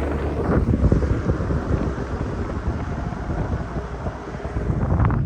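BMW E39 5 Series being driven, with steady road and tyre rumble and wind buffeting the microphone.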